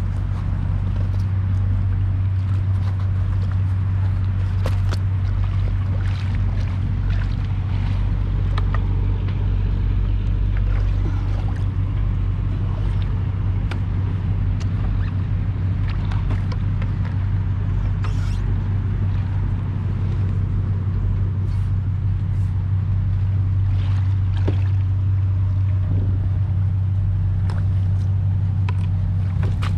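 Yamaha WaveRunner jet ski's engine idling, a steady low hum, with scattered small knocks and clicks on top.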